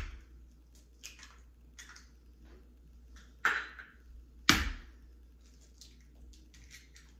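Raw eggs being cracked on the rim of a stainless steel mixing bowl: two sharp knocks about three and a half and four and a half seconds in, with small clicks of shell being pulled apart between them.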